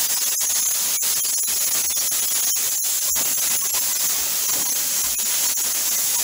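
Plasma cutter cutting through sheet-metal floor panel: a steady hiss of the air-driven arc with many brief breaks as the torch moves along the cut.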